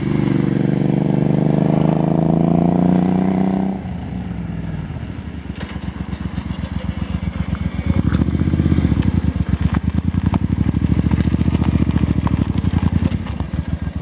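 Suzuki Intruder C800 / VL800 V-twin running through an aftermarket Silver Tail exhaust. It rides past close by with a strong, slightly falling note that drops off suddenly about four seconds in. The engine then runs with a lumpy, pulsing beat at low speed, growing louder from about eight seconds as the bike comes round close and pulls up.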